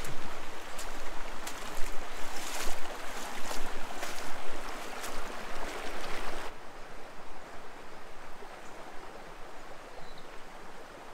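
Shallow river water running over rocks: a steady rush of water that drops suddenly to a quieter flow about six and a half seconds in.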